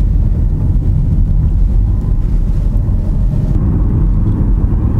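Steady low rumble of a car driving, with road and engine noise heard from inside the cabin.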